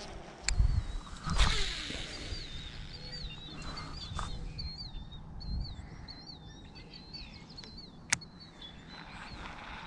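A songbird singing a continuous warbling song. Two loud dull thumps come near the start, and a single sharp click comes about eight seconds in.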